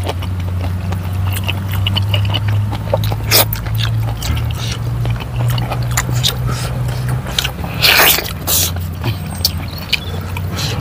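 Soft background music carried by a low, sustained bass that shifts note a couple of times, over wet chewing, lip-smacking and clicks of people eating with their hands.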